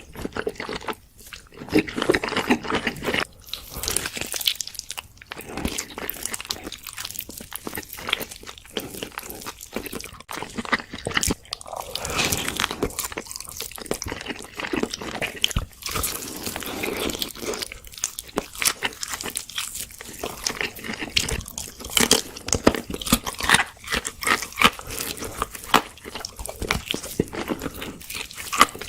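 Close-miked eating: crunchy bites and chewing, with dense sharp crackles throughout.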